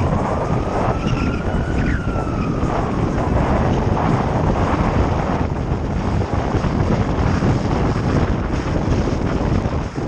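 Wind rushing and buffeting over a helmet camera's microphone while riding: a loud, steady rumble. A faint whine rises and then falls in pitch in the first few seconds.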